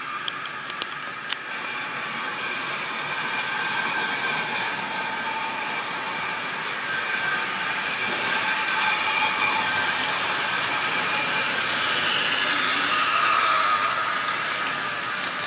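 Model railway goods train running on the track, a steady whir of motor and wheels rolling on the rails, with a few light clicks in the first second or so. It grows louder as the wagons pass close by near the end.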